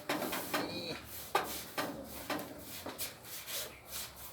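Hand tool work: a series of short, irregular scraping and knocking strokes, about two a second.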